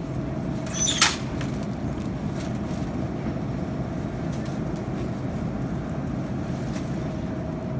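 Metal shopping cart rolling over a store floor, its wheels and frame giving a steady rattling rumble, with one sharp clack about a second in.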